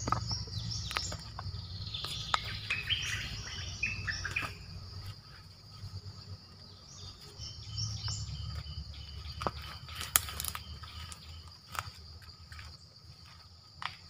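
Caged decoy bulbul calling in short chirps, a clutch in the first few seconds and more around eight seconds in, over a steady high insect drone. A few sharp clicks come later.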